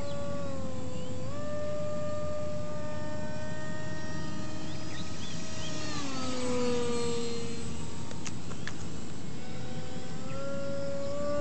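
Electric brushless motor and propeller of a foam RC plane whining in flight. The pitch dips briefly about a second in, falls about six seconds in, and climbs back near the end.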